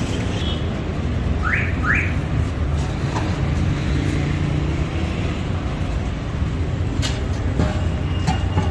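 Street noise: a steady low rumble of traffic, with two quick rising chirps about a second and a half in and a couple of sharp clicks near the end.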